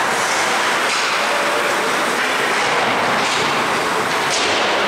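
Ice hockey rink during play, heard from the stands: a steady wash of noise from skating on the ice and the arena around it.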